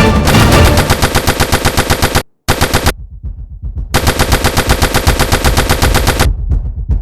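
Automatic gunfire in rapid bursts, about ten shots a second, breaking off for about a second near the middle and stopping near the end.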